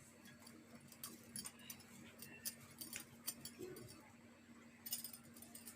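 Near silence: scattered faint light clicks and taps over a steady low hum.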